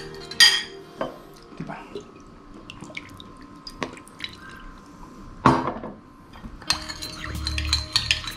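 Metal spoon clinking against a ceramic bowl: a few separate knocks, then rapid clinking from about seven seconds in as the balsamic vinaigrette is stirred.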